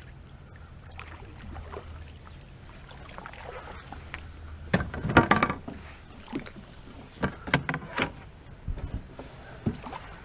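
A canoe moving through shallow water, with paddle and water sounds and hard knocks on the hull: a loud clatter of knocks about halfway through, then a few single knocks.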